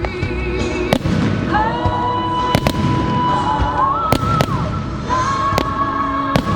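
Fireworks going off in a string of sharp bangs, several of them in quick pairs, over the show's music soundtrack with long held sung notes.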